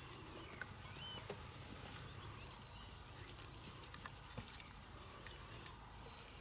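Quiet bush ambience with faint songbird calls: short chirps and whistled notes, including a quick run of them about two to three and a half seconds in.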